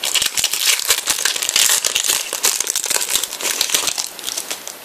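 Foil wrapper of a Prizm trading-card pack being torn open and crinkled by hand: a dense run of sharp crackling that thins out and quietens near the end as the cards are slid out.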